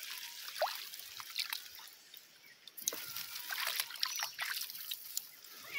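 Water trickling and dripping in small scattered drips and splashes, with a few faint short chirps.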